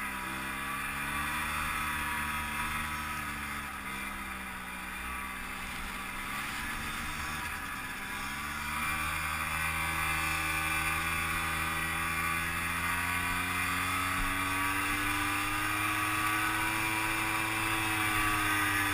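Ski-Doo Tundra snowmobile engine running as it rides through powder, its pitch sagging for a few seconds and then climbing and holding higher as it gets louder about nine seconds in. A steady hiss of track and wind runs over it.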